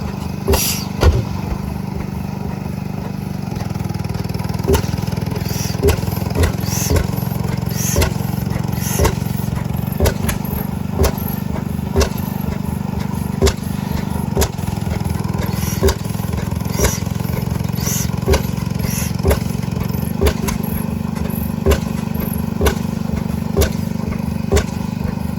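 Antique gas engines running: a steady low drone with sharp exhaust pops about once a second, the slow firing beat of an old single-cylinder engine.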